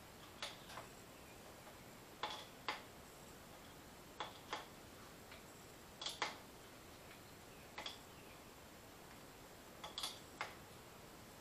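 Hand grease gun being pumped at a backhoe boom pivot bushing: light clicks, mostly in pairs, about every two seconds, one pair for each stroke of the lever.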